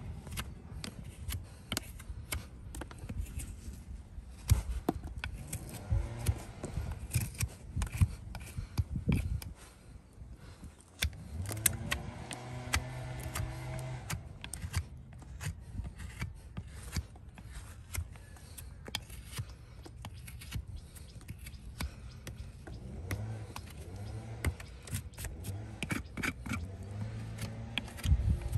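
Farrier's hoof knife paring a horse's hoof sole and frog: short, irregular scraping cuts, one after another, with a brief pause partway through.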